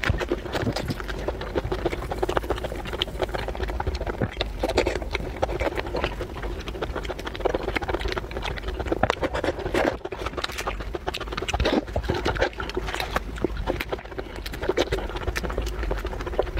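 Wet eating sounds from raw giant shrimp: lips sucking and smacking, chewing, and the shrimp shells being pulled apart, a dense run of clicks and slurps.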